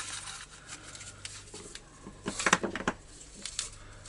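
Plastic recoil-starter pulley of a Patriot 5220 chainsaw being turned by hand in its housing to wind up the return spring: light rubbing and plastic clicks, with a cluster of sharper clicks about two and a half seconds in.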